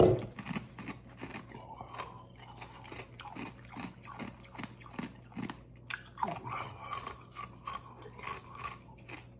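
A man's mouth sounds as he suffers the burn of a spoonful of Mad Dog 357 hot sauce: short irregular breaths, lip smacks and chewing, with a loud one at the very start and a faint strained hum about two-thirds of the way in.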